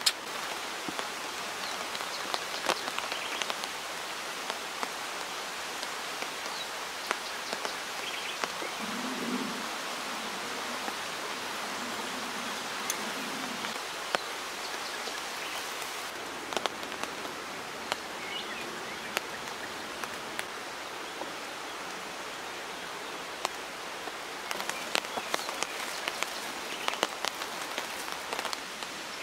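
Heavy rain falling steadily, with many sharp raindrop hits scattered through it.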